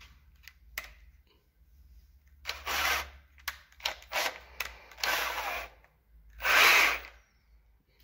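Cordless drill being fitted with a second chuck on its tip: several short noisy bursts of a second or less, the loudest about three-quarters of the way through.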